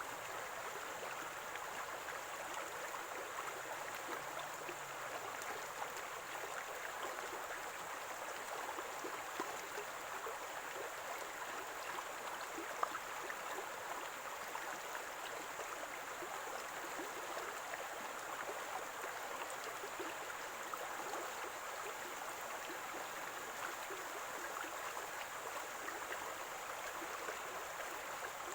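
A small stream of running water, gurgling and splashing steadily.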